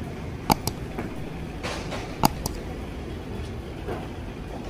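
Steady low rumble of vehicle running noise, with a few sharp clicks: two loud ones about half a second and a little over two seconds in.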